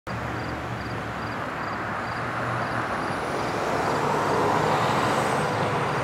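Outdoor road traffic: a steady rush that swells about four to five seconds in, as a vehicle goes by. A faint high chirp repeats about twice a second.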